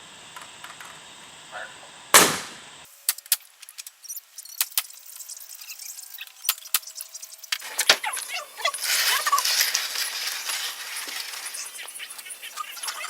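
One loud sharp bang about two seconds in, then scattered clicks and knocks, turning into denser clattering in the second half.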